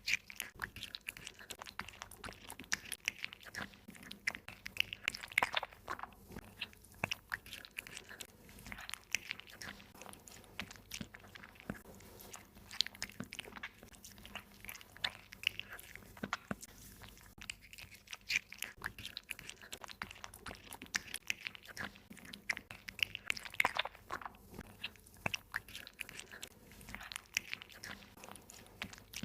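A small cat eating, chewing and crunching its food in quick, irregular crunches and mouth clicks.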